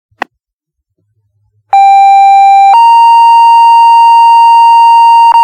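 Two-tone sequential paging tones sent over the fire dispatch radio to set off the volunteer firefighters' pagers for a full-response call-out. A short radio click comes first, then a steady tone held about a second, stepping straight up to a slightly higher tone held about three seconds.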